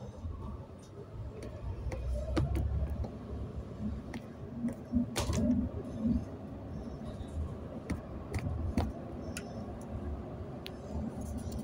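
Inside a moving Mercedes-Benz Conecto G articulated bus: a low rumble from the engine and Voith automatic gearbox, with frequent rattles and clicks from the bodywork.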